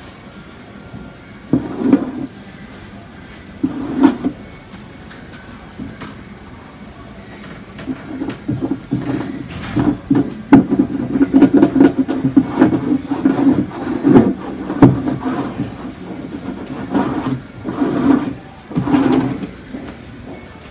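Hand-worked rubbing and scraping strokes against the cold wax and oil surface of a painting on a cradled panel. There are a few separate strokes at first, then a dense run of quick strokes through the middle that tails off near the end.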